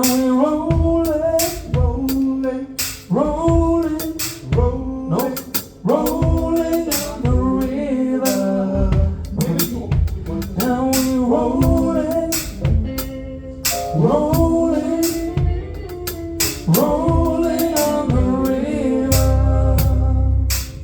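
Singing over a drum kit in a band sound check: sung phrases of a few seconds each, with sharp drum hits between and under them. A heavy low bass note sounds near the end.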